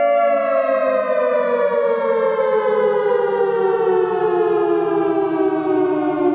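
A siren-like wail with many overtones, held without a break and sliding slowly and steadily down in pitch.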